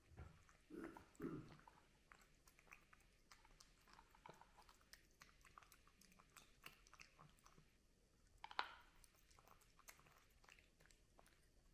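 Domestic cat eating from its bowl: faint, quick, irregular chewing and crunching. One sharper, louder crunch comes about two-thirds of the way through.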